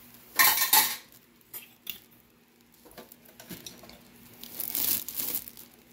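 Plastic oven bag crinkling as it is handled, in two bursts: a loud short one about half a second in and a longer one near the end, with a few small clicks between.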